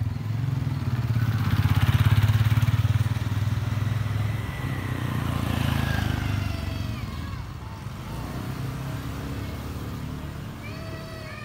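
Motorbike engine passing along the street, loudest about two seconds in, then fading and dropping lower over the last few seconds.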